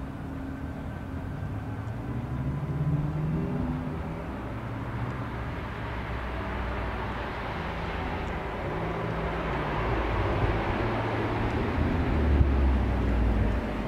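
BMW F80 M3's twin-turbo inline-six with an Akrapovič exhaust, approaching: the engine note steps up in pitch in the first few seconds, then the sound grows steadily louder as the car nears.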